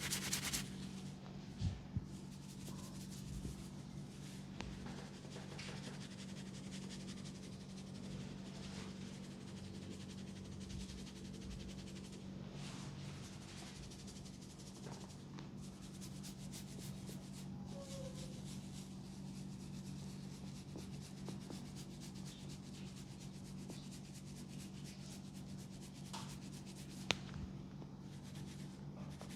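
Hands rubbing and kneading close to the microphone during a massage, a continuous scratchy rubbing with fine crackle, over a steady low hum. A single sharp click stands out near the end.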